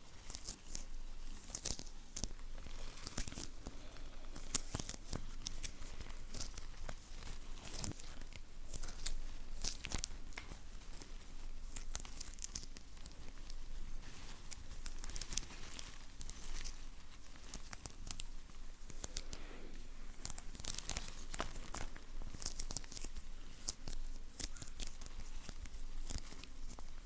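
Close-miked ASMR sticky sounds: something tacky being peeled and pulled apart in quick, irregular crackling strokes, mixed with rustling.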